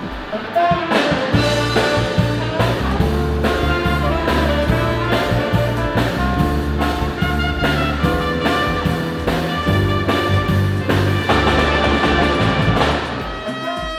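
Military band of saxophones, clarinet, trumpets and trombones playing a swing-style jazz tune with a steady beat. It grows softer near the end.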